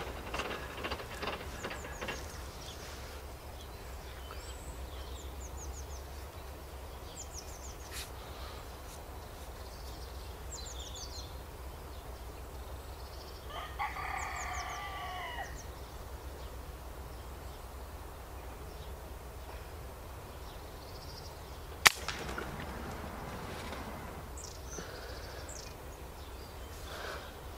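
Faint songbird chirps and a two-second bird call, then about 22 s in a single shot from a .177 air rifle with a loud, sharp crack, which the shooter takes for the pellet breaking the woodpigeon's spine.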